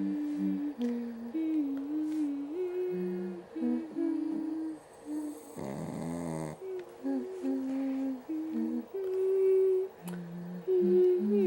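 Two voices humming a slow lullaby tune without words, holding long notes that step up and down, one part higher and one lower. A short breathy, rasping noise breaks in about six seconds in.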